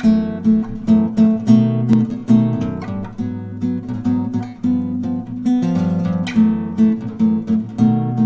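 Background music: acoustic guitar strummed in a steady rhythm of chords.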